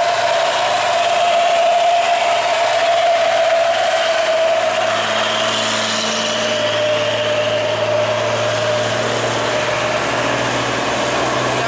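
Heavy diesel trucks passing on a wet road: engines running with a steady whine that slowly sinks in pitch, over the hiss of tyres on wet asphalt.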